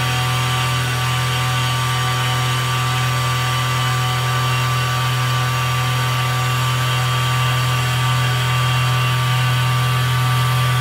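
PM-25MV milling machine running a CNC cut, its end mill machining aluminium soft jaw stock: a steady hum from the running machine with a hiss over it, unchanging throughout.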